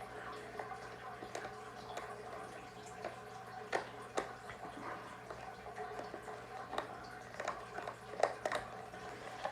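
Irregular faint clicks and small knocks of a screwdriver working the screws out of a baby swing's plastic battery cover, over a steady faint hum.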